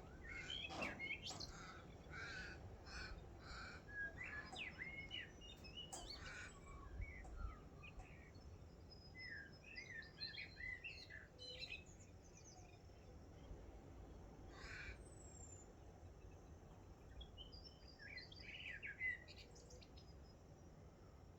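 Dawn chorus of several wild birds, faint: clusters of short chirping, warbling notes in the first few seconds, again around ten seconds in, and near the end.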